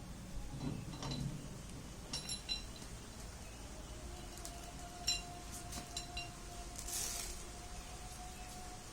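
Metal tools and engine parts clinking lightly as they are handled, a few short strikes that ring briefly. A faint steady tone sounds from about halfway through, with a short hiss near the end.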